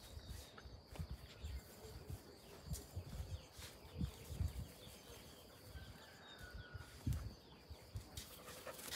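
Quiet outdoor garden ambience: soft low bumps and rustles, with a couple of faint bird chirps.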